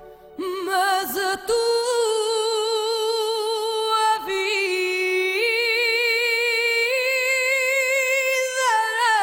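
Unaccompanied female voice singing long held notes without words, with a wide vibrato, moving between a few pitches.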